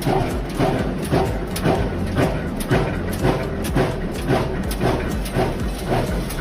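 Screw thread-rolling machine running, its dies cycling with a steady rhythmic clatter of about two strokes a second.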